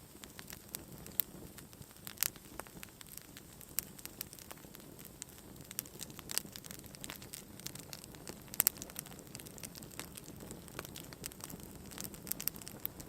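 Wood campfire crackling, with irregular sharp pops, the loudest a double pop near the middle.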